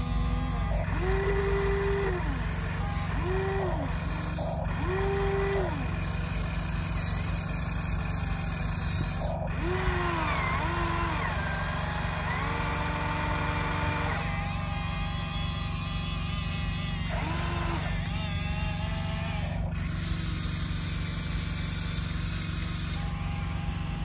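Small electric motors of a Huina RC excavator whining in short spurts, each rising in pitch, holding, then falling, as the boom, bucket and swing are worked, over a steady low hum.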